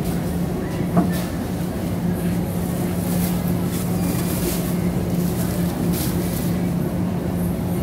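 Supermarket aisle noise: a steady low hum and rumble with light rattling, broken by a few sharp knocks, the loudest about a second in.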